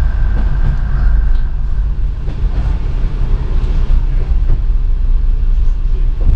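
A Class 107 diesel multiple unit on the move, heard from inside its driver's cab: the underfloor diesel engines and running gear give a steady low rumble. A thin high whine fades out about a second and a half in.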